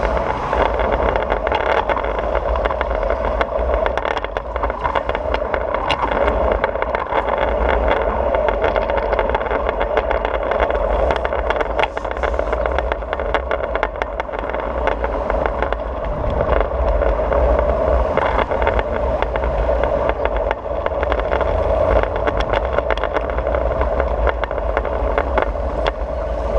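Oxelo 7 kick scooter's wheels rolling over stone paving slabs: a steady rolling hum and rumble with many small clicks as the wheels cross the joints between the slabs.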